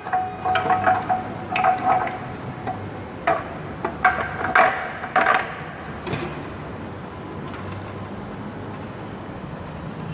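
Metal clinking and tapping as tools and engine parts knock together during work on the timing chain cover, about nine sharp clinks with a short metallic ring over the first six seconds, then only a faint steady background.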